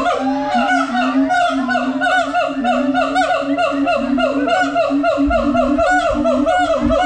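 Siamangs (Symphalangus syndactylus) calling in chorus: a fast, unbroken run of rising-and-falling whooping calls, several a second, with a steadier lower hooting line beneath.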